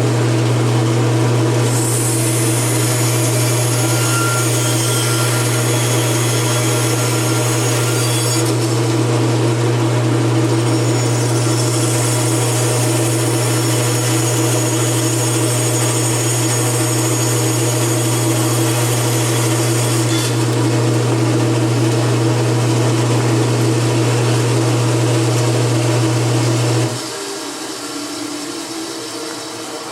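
Bandsaw running with a steady motor hum, its blade cutting through wood in two long spells of hissing sawing while the lid of a box is cut to shape. Near the end the motor hum drops away as the saw is switched off.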